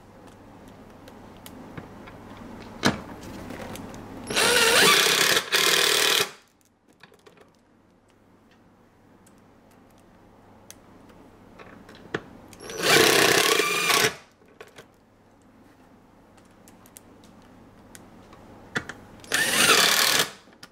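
Cordless power driver running bolts into the backrest bracket of a chair seat. It runs in three bursts of about a second and a half each, the first broken by a short pause, with light clicks of handling in between.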